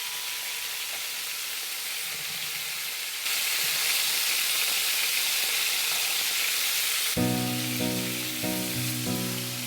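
Seasoned chicken pieces frying, a steady sizzle that grows louder about three seconds in.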